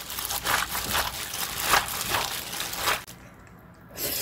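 A hand in a disposable plastic glove tossing and kneading fresh seaweed with gochujang seasoning in a stainless steel bowl: wet squishing and plastic crinkling in repeated strokes. It falls quiet for about a second near the end.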